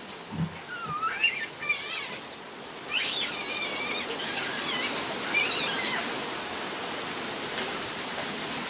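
Animal calls: a few short, high chirping calls that glide up and down in pitch, over a steady hiss.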